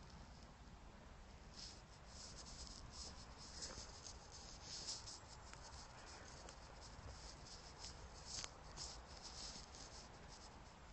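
Near silence, with faint, irregular rustling and scratching throughout.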